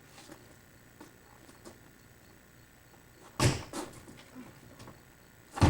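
Two sudden thuds about two seconds apart, the first about three and a half seconds in: a metal fire iron being jabbed through the cardboard walls of a refrigerator box.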